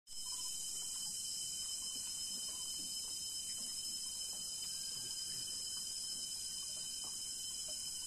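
Rainforest insect chorus: a steady, high-pitched drone with two unwavering pure tones beneath it.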